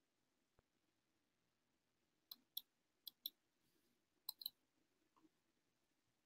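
Near silence broken by three pairs of faint clicks from a computer mouse, starting a little over two seconds in.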